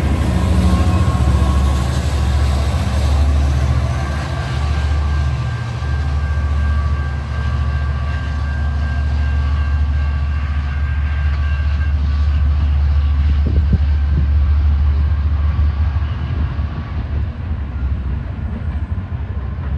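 Amtrak Piedmont passenger train passing and pulling away, led off by its rear diesel locomotive: a loud, steady low rumble with wheels clattering on the rails. A faint steady whine drops out about twelve seconds in, and the sound eases off over the last few seconds.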